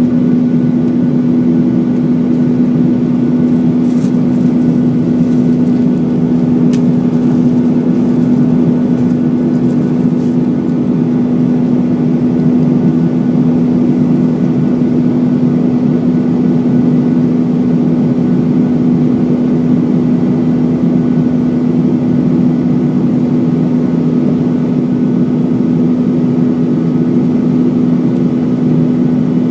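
Steady drone of a Boeing 737-900 in flight, heard inside the passenger cabin: its CFM56 jet engines and airflow make an even hum with a strong low tone. A few faint clicks come between about four and ten seconds in.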